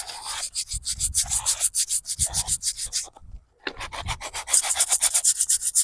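Hand scraper rasping quickly back and forth over a stone headstone, about five strokes a second, to lift grime loosened by the cleaner. It pauses briefly about three seconds in, then starts again.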